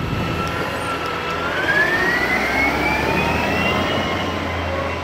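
Garbage truck driving off with a steady low engine hum and a whine that rises in pitch as it accelerates, from about a second and a half in.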